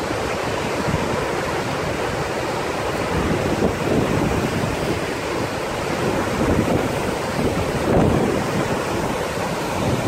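Gullfoss waterfall rushing steadily, a dense, even noise of heavy water falling into the gorge, with wind buffeting the microphone.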